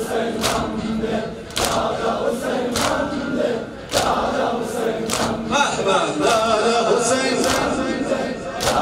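Large crowd of men chanting a mourning lament in unison, with loud chest-beating slaps (matam) landing together about once a second; a single lead voice wavers over the crowd in the middle.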